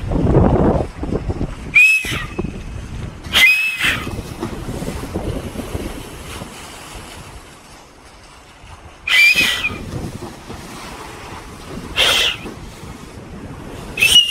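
Wind buffeting the microphone over the rushing water of a ship's bow wave. Five times comes a short, sharp sound with a brief high-pitched squeak in it.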